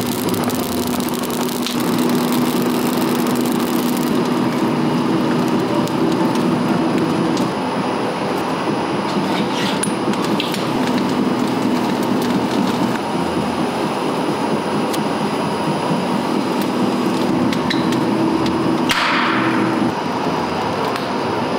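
Two-roll rubber mill running steadily as red silicone compound is worked between its chrome rollers: a constant machine drone with a low hum that fades and comes back. A few light clicks, and a brief hissing rush near the end.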